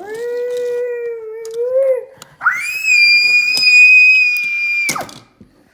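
A young child's voice: a held "aah" for about two seconds, then a long, loud, high-pitched squeal that drops away sharply near the end.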